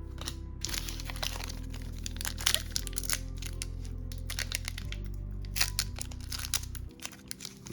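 Foil booster-pack wrapper crinkling and tearing, with many short crackles as the pack and cards are handled, over background music with slow bass notes that change every couple of seconds.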